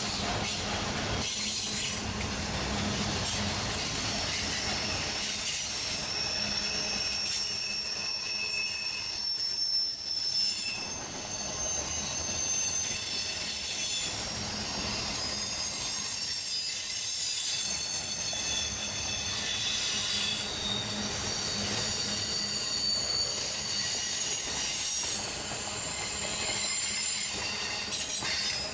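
Railroad cars rolling past with their steel wheels squealing, several high, shifting tones that come and go over a steady rumble from the train.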